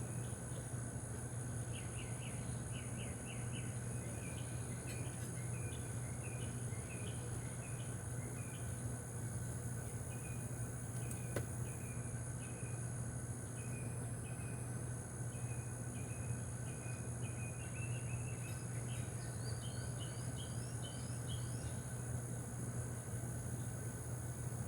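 Insects trilling steadily in a high-pitched chorus, with a bird chirping over and over through most of the stretch and a low steady hum underneath.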